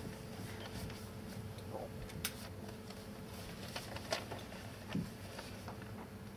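Quiet room tone of a hushed hall during a moment of silence: a low steady hum with scattered small clicks and rustles. The sharpest click comes about four seconds in, and a soft thump about five seconds in.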